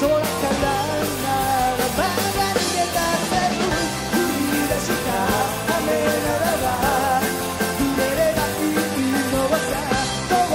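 Live rock band playing a song, with a male lead singer singing over drum kit and electric guitars.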